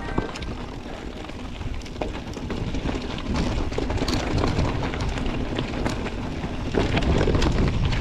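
Wind buffeting the microphone with a heavy low rumble during a mountain-bike descent, with frequent clicks and rattles from the bike, getting louder near the end.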